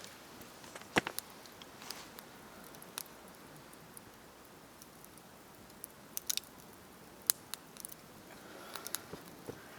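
Wood campfire crackling, with scattered sharp pops every second or two over a low steady hiss; the loudest pop comes about a second in and a small cluster follows around six seconds.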